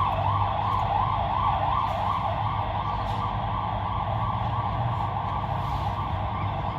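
Emergency vehicle siren sounding in the street, a fast up-and-down warble for about three seconds that then settles into a steadier, blurred tone, over a constant low hum of traffic.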